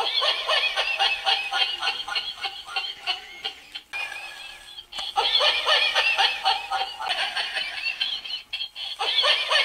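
Laughing toy dog's recorded human laugh played through its small speaker, in long runs of rapid ha-ha pulses that break off briefly twice.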